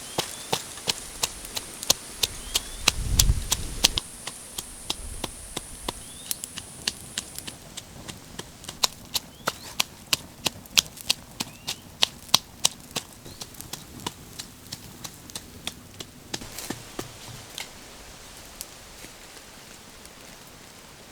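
Knife chopping on a wooden cutting board: a long run of sharp knocks, about two or three a second, that thins out near the end.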